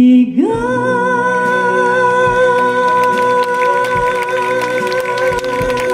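Female singer holding a long high note with vibrato over a full orchestra, sliding up into it about a third of a second in: the song's final sustained note.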